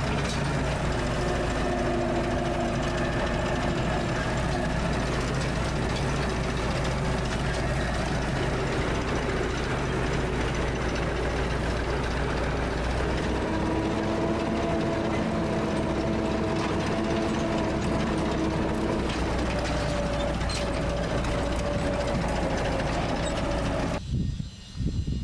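An engine running steadily, its pitch shifting about halfway through, then cutting off abruptly near the end.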